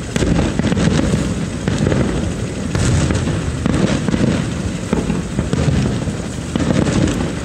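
Fireworks display: a steady rumble of bursting shells, with a few sharper cracks standing out.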